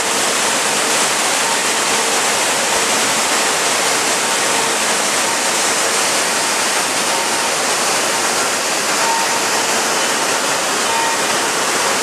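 Waterfall of the Leuk stream in flood, carrying snowmelt high water: a loud, steady, even rush of falling and churning water.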